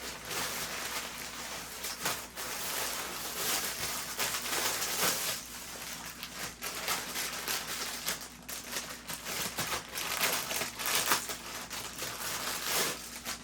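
Packaging crinkling and crackling as a newly delivered item is unwrapped, with rapid irregular crackles throughout that stop abruptly at the end.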